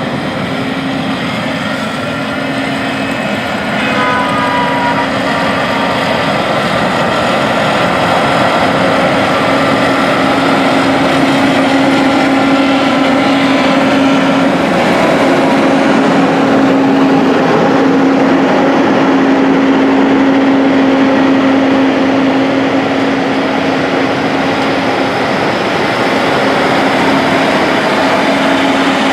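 Heavy farm vehicles' diesel engines running steadily on the road, with a steady low drone; the sound grows a little louder about four seconds in.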